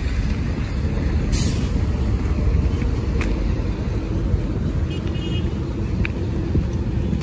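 Road traffic: cars and heavy trucks passing on a highway, a steady low rumble.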